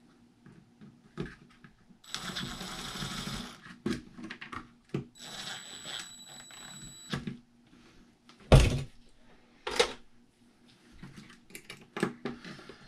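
RC car's brushless motor spun up twice in short runs, each a rough, gritty whir lasting a second or two, the second carrying a thin high whine; the rough sound points to worn, dirty internals. Sharp knocks of parts handled on the bench follow, the loudest about halfway through.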